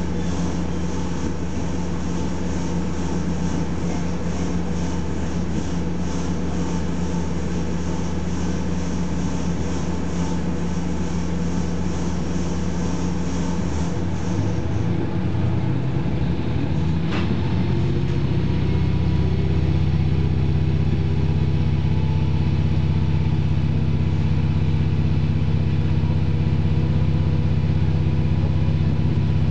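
KiHa 40 diesel railcar under way, heard from inside the car: steady diesel engine and running noise. About halfway through, the engine's note rises and it runs a little louder, as if the throttle is opened, with one sharp click at the same time.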